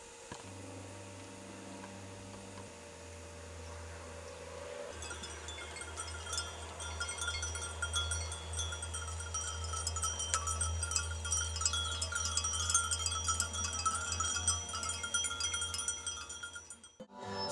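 Many small livestock bells jingling irregularly, starting about five seconds in and growing louder, over a low steady hum; the sound cuts off shortly before the end.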